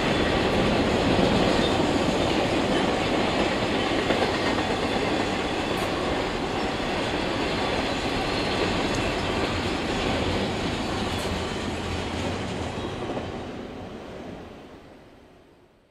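Doublestack container well cars of a freight train rolling past, a steady rumble and clatter of steel wheels on rail. The sound fades away over the last few seconds as the end of the train passes.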